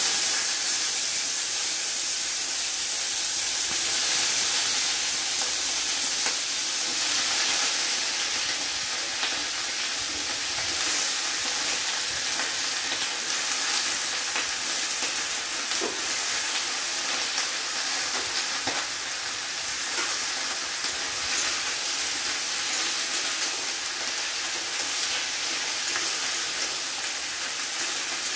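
Chopped vegetables sizzling steadily as they fry in hot oil in a steel wok, with a few light taps of stirring.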